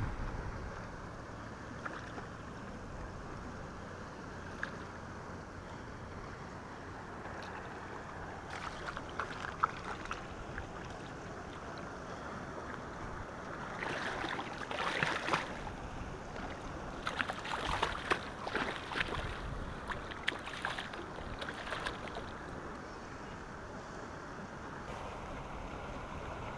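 Steady wind and water noise, then a hooked fish splashing in the shallows at the shoreline as it is landed by hand, in repeated bursts from about halfway through.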